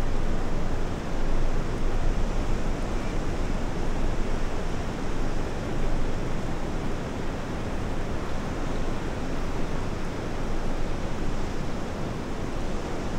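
Ocean surf and wind, a steady rushing noise that swells and eases a little, with no distinct breaks or other events.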